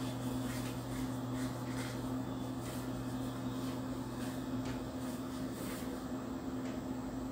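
Thick spice-and-gram-flour masala frying in a nonstick kadhai, with faint sizzling and a plastic spatula scraping through it as it is stirred. A steady low hum runs underneath.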